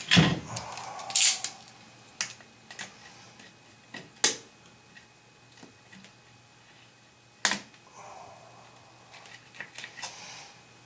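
Scattered sharp clicks and clinks of metal bolts and hand tools being handled while working on a broken toilet flange, irregularly spaced, with the loudest knocks right at the start and about seven and a half seconds in.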